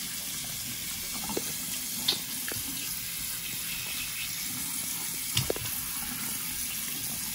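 Bathroom sink faucet running, a steady stream of water falling into the basin, with a few short clicks over it, the loudest about five seconds in.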